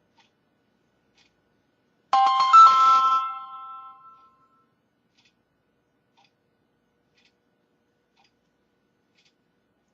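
Samsung Galaxy S4's start-up chime sounding from the phone's speaker as it boots after being powered on: a short bright multi-note chime about two seconds in that rings out and fades over about two seconds.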